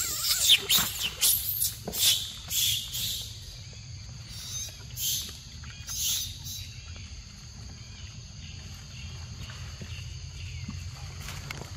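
A quick series of short rustling, crunching noises, several a second for the first three seconds, then a few scattered ones, over a steady high-pitched insect drone.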